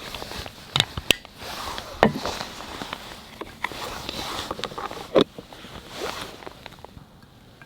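Coffee-making gear being handled: a few sharp clicks and knocks amid rustling, dying down near the end.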